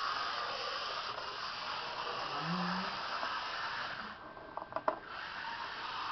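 The small electric motor of an H0 model ADM-1 track-maintenance railcar whirring steadily as it runs along the rails after a repair. The whir drops briefly about four and a half seconds in, with a few sharp clicks.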